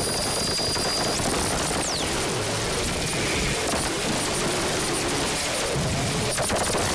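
Harsh noise music: a loud, unbroken wall of hiss and crackle. High steady tones in it cut off about a second in, a falling whine follows about a second later, and a few sharp clicks come near the end.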